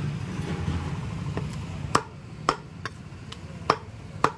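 Butcher's cleaver chopping mutton: sharp, irregular strikes, with about four loud blows in the second half and lighter knocks between them. A low rumble fades out about two seconds in.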